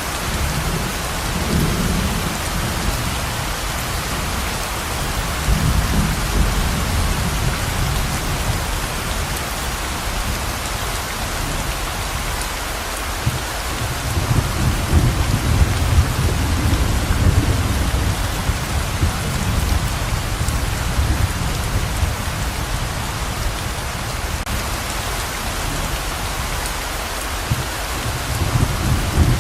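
Heavy rain pouring steadily as an even hiss, with swells of low rumbling several times, the longest about 14 seconds in.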